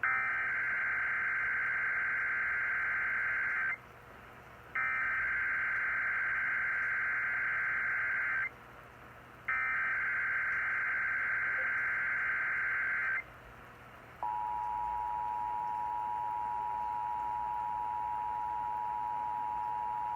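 Emergency Alert System SAME header: three bursts of screeching digital data tones, each nearly four seconds long with about a second between them. About fourteen seconds in, the steady two-tone EAS attention signal (853 and 960 Hz) starts and holds; it announces an alert, here a coordinated monthly test.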